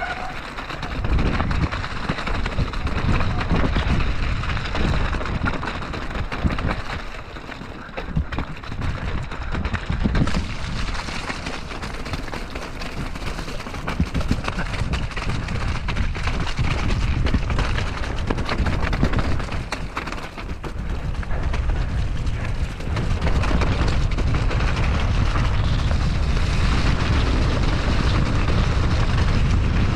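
Mountain bike riding fast downhill on a muddy, rocky trail: wind buffeting the camera's microphone with a deep rumble, tyres running through mud, and frequent knocks and rattles of the bike over rough ground. The rumble grows heavier and steadier about two-thirds of the way through.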